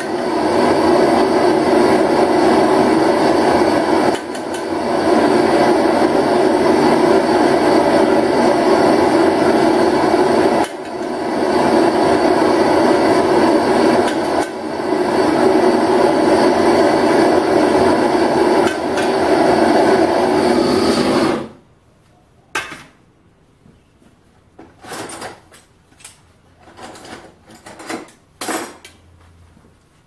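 LPG torch burner firing steadily into a clay flower-pot furnace while it melts aluminium, then shut off suddenly about 21 seconds in. A few scattered metal clinks and knocks from tools handling the crucible follow.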